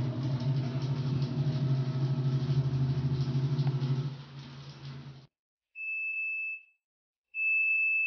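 Fujidenzo JWA6500VT top-load washing machine's motor humming steadily as the tub spins in the final spin-dry phase, fading out about four to five seconds in. Then the machine sounds two long, high beeps, the end-of-cycle signal.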